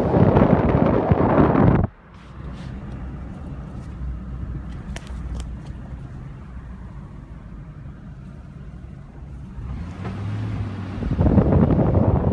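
Wind buffeting the microphone cuts off sharply about two seconds in, giving way to a quieter steady low hum with a few faint clicks. The wind noise returns about a second before the end.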